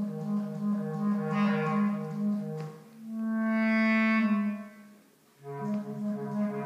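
Bass clarinet playing a quick repeated figure of low notes, then one long held note that swells and fades away. After a brief pause the low repeated figure starts again.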